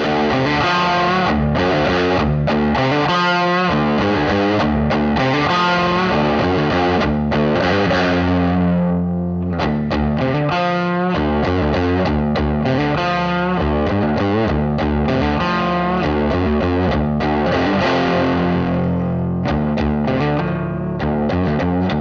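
Mensinger Birdy, a Firebird-style electric guitar, played with a distorted tone. Sustained chords and notes are broken up by several quick single-note runs.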